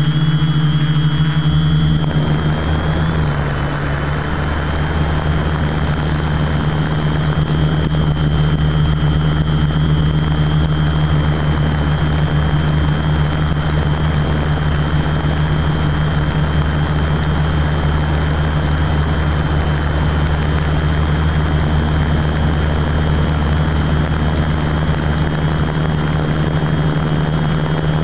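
Quadcopter's electric motors and propellers humming steadily while it hovers, holding position in loiter mode, heard from a camera mounted on the quad. The pitch drops slightly about two to three seconds in.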